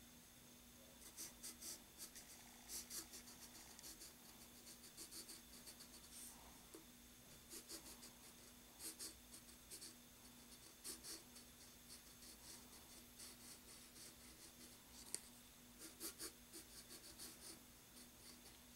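Graphite pencil scratching faintly on paper in quick clusters of short strokes, drawing light spiky zigzag lines.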